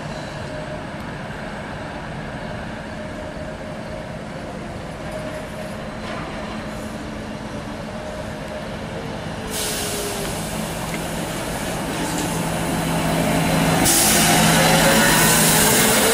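SEPTA New Flyer electric trolleybus approaching and passing close by over steady street traffic, its traction motor whining with pitch lines that rise and fall as it goes by. A hiss comes in about ten seconds in and grows loud near the end, when the bus is passing.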